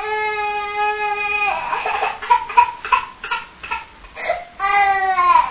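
Baby crying: one long steady wail, then a run of short, choppy sobbing cries, then a second wail that sags a little in pitch near the end.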